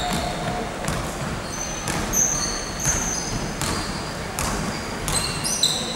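A basketball being bounced on an indoor court, with sharp bounces about once a second, mixed with short high-pitched squeaks of sneakers on the court floor during play.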